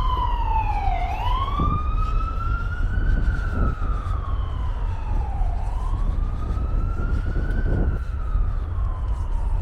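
Emergency vehicle siren wailing, its pitch sliding slowly down and up again about every four and a half seconds, over a steady low rumble.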